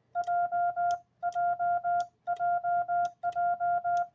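Morse code sidetone, a steady mid-pitched beep, sending the letter J (one short, three long) over and over, about once a second, keyed on a Vibroplex iambic paddle. Faint clicks of the paddle come with each letter.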